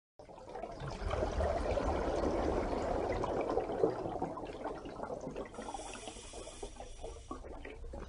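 Water sound: bubbling, gurgling water that starts abruptly and eases off after about four seconds.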